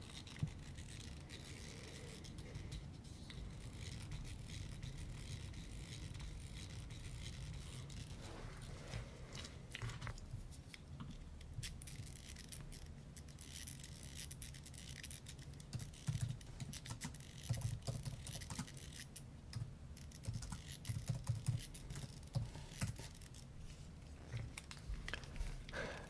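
Close-up hand handling sounds: scattered small clicks and scratches, with a run of soft low thumps from about 16 to 22 seconds in.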